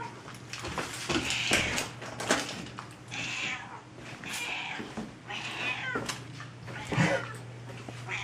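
A domestic cat meowing over and over, about one call a second, with a few light knocks between the calls.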